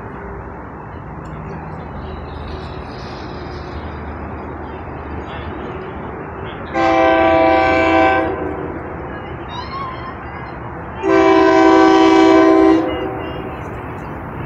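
SEPTA Silverliner V electric commuter train's Nathan K3LA horn sounding two long chime blasts, about four seconds apart, over a low steady rumble. These are the long blasts of the signal for the road crossing as the train approaches the station.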